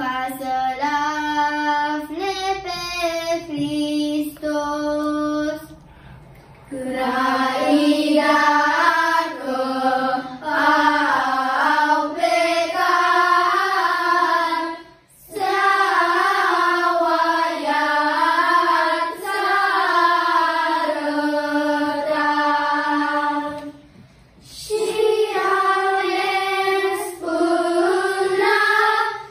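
Children's choir singing a Romanian Christmas carol (colind) in unison. A softer phrase first, then louder, fuller singing from about a quarter of the way in, with short breaks between phrases.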